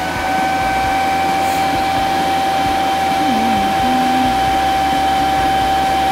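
Cooling fan of a Canaweld TIG AC/DC 201 Pulse-D welding machine running at full speed with a steady whine. This is the short fan run the machine does when it is first switched on, before the fan shuts down.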